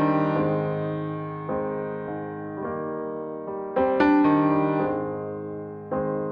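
Slow background piano music: sustained chords struck every one to two seconds, each one fading before the next.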